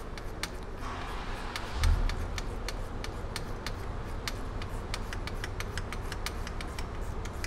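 Stubby 14 mm ratcheting wrench clicking in quick, uneven strings as it tightens the nuts holding the transfer case to the transmission, over a steady low hum, with one dull thump about two seconds in.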